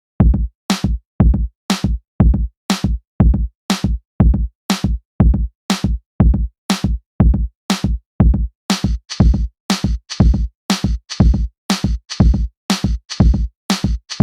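Background electronic music: a drum-machine beat at about two beats a second, starting just after the opening instant, with a brighter hissing layer joining about two-thirds of the way through.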